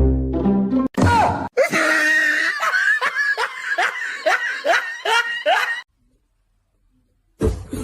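A person laughing hard in a rapid run of pitched bursts, about two to three a second, that stops suddenly after about six seconds.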